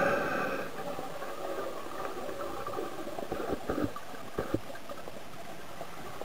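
Underwater sound heard through a dive camera's housing. A gurgling rush of bubbles fades over the first second, then comes scattered bubbling with a few low knocks a little past the middle, over a steady hiss.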